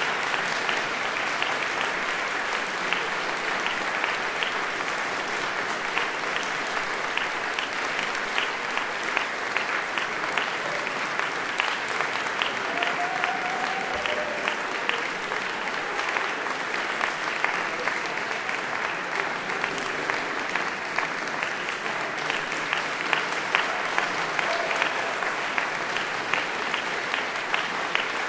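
Concert-hall audience applauding steadily, many hands clapping at once, with sharp single claps standing out.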